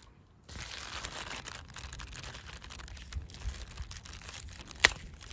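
Brussels sprout plant's leaves rustling and crinkling as hands handle the stalk, with one sharp snap a little before the end as a sprout is broken off the stalk.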